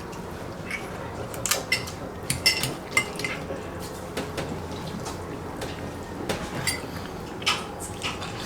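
Eating utensils clinking against bowls while noodles are eaten: irregular light taps throughout, a few with a short ring, busiest in the first few seconds and again near the end.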